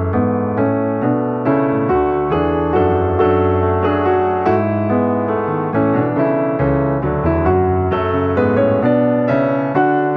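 Background piano music: a steady run of struck notes over held bass notes.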